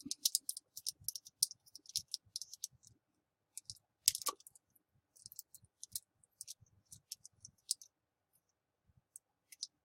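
Faint, irregular small metallic clicks and ticks of a screwdriver turning the screw of a banana plug down onto a jumper wire's end, with a sharper click about four seconds in.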